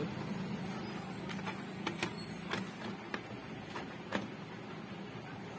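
Multimeter probe tips clicking against the leads of a small diode during a continuity check: about nine light, irregular clicks, the last about four seconds in.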